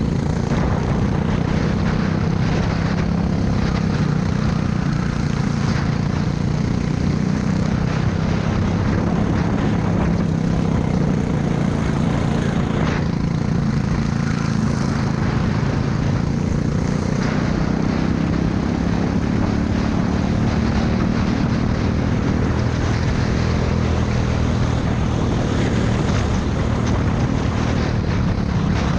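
Racing kart's engine running hard, heard from on board: a steady drone whose pitch rises and falls a little with speed through the corners, over a constant rush of noise.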